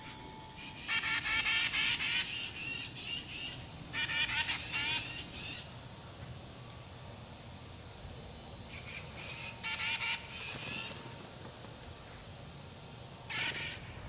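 Birds calling in several short bursts, over a high, evenly pulsing chirp from an insect that starts a few seconds in and keeps going.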